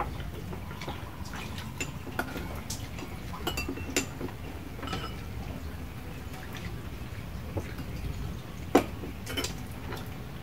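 Cutlery and dishes clinking as people eat: scattered light clicks and taps of utensils against bowls, with one sharper knock near the end.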